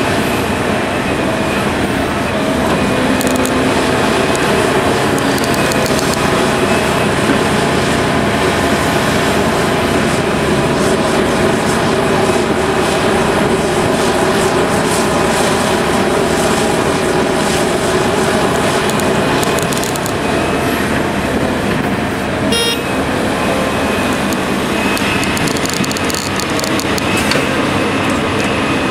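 Heavy diesel earthmoving machinery, a Liebherr 974B hydraulic excavator working with articulated dump trucks, running steadily under load with a continuous engine drone and hum. There is one brief sharp knock about three-quarters of the way through.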